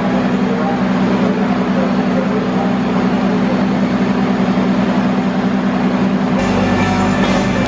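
KRL electric commuter trains at a station platform: a steady, loud hum from the trains as one pulls slowly past another standing train. Near the end a brighter sound with higher tones comes in over the hum.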